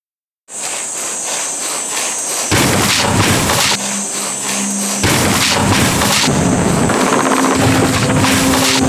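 A Toyota sedan's tyres and suspension pounding and rattling over rough test-track bumps and stones, in a rapid run of heavy knocks. It starts about half a second in and grows louder after a couple of seconds.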